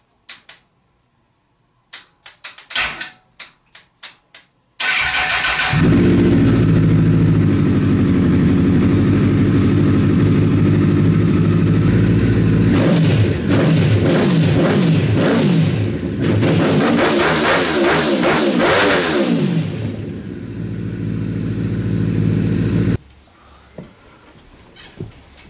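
A few sharp clicks, then the buggy's Honda CBR 1000 inline-four motorcycle engine starts about five seconds in and runs loudly. In the middle it is revved up and down several times. The sound cuts off suddenly near the end.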